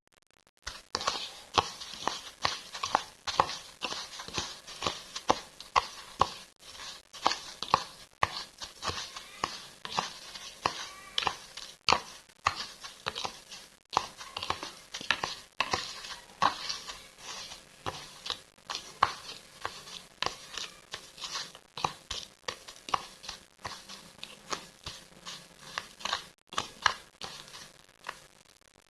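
Raw chicken pieces being rolled in breadcrumbs and laid in a container by hand: a continual run of irregular small crackles, taps and rustles.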